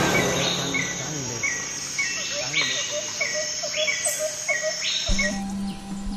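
Insects chirring steadily and high, with a bird calling in short, repeated notes about twice a second. Music comes in about five seconds in.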